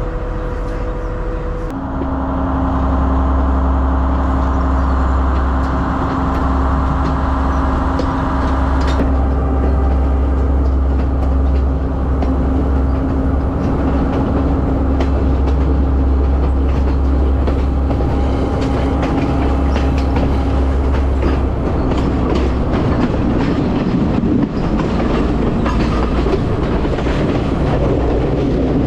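Diesel train running with a strong low drone and a steady hum that both step up about two seconds in; in the last few seconds, wheels clatter over the rail joints.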